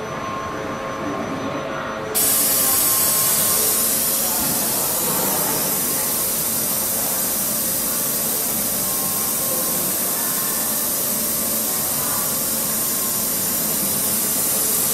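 Steady loud hiss like rushing air, cutting in abruptly about two seconds in over a quieter mechanical background.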